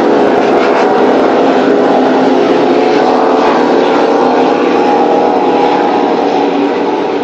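Racing powerboat engines running loud and steady, a dense engine drone whose pitch wavers slightly.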